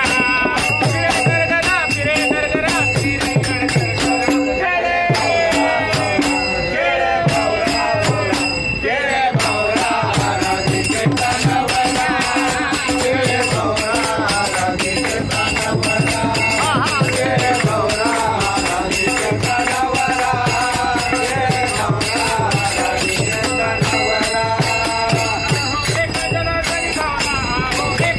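A group of men singing a Marathi bhajan together, with hand-clapping and a steady percussion beat.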